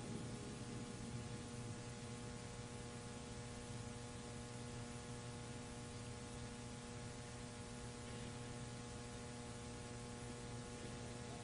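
Faint, steady electrical mains hum with a layer of hiss from the microphone and sound system.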